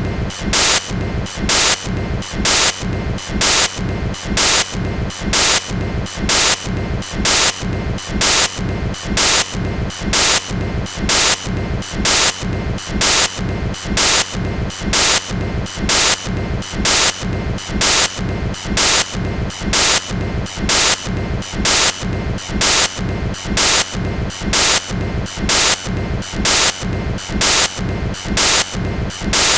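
Freight train cars rolling past, the rumble and rail noise of the wheels pulsing in a steady, even beat a little more than once a second.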